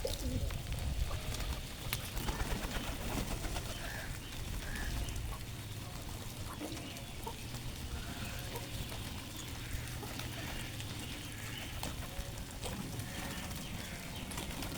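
Flock of birds at a feeding spot, with many short scattered calls over a steady low rumble.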